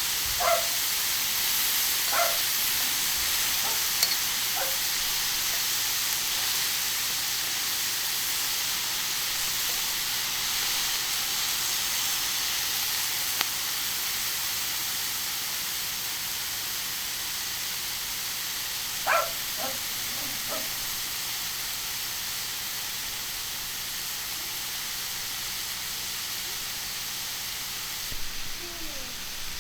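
Beef tongue and skirt steak sizzling on a hot iron griddle: a steady hiss that eases slightly toward the end, broken by a few brief sharp crackles.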